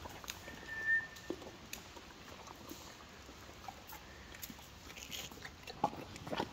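Horses nuzzling and nibbling feed and straw at close range: soft rustling with scattered small clicks and crunches. A brief high squeak comes about a second in.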